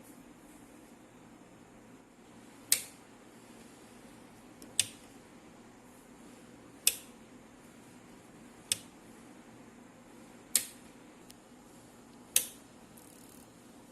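Thermaltake LitePower 450W power supply fan ticking: a sharp tick about every two seconds, six in all, over a low steady hum. The power supply has shorted.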